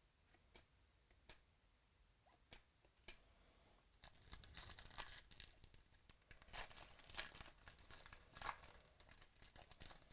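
A few light clicks, then from about four seconds in a foil trading-card pack wrapper being torn open and crinkled, a faint dense crackle until near the end.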